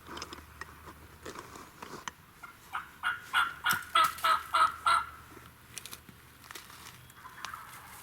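A wild turkey calling: a run of about nine evenly spaced yelps, roughly three a second, lasting about two and a half seconds.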